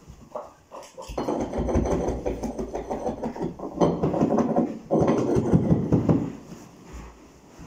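A few light knocks, then a large sheet of carpet being lifted, flapped and dragged across the floor: about six seconds of irregular rustling and scuffing with low thuds.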